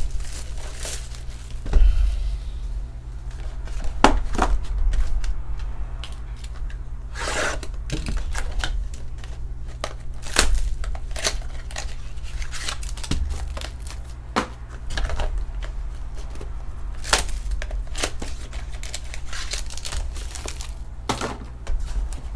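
Cardboard trading-card pack boxes and plastic wrapping handled and opened by hand: crinkling, tearing and scattered taps and knocks, over a steady low hum.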